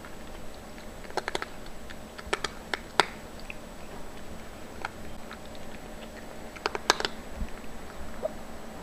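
A cat crunching dry kibble from a bowl: irregular sharp crunches, a quick cluster about a second in and another near seven seconds.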